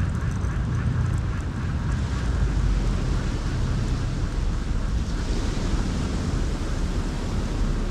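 Wind buffeting the microphone in a steady low rumble, with the wash of ocean surf behind it.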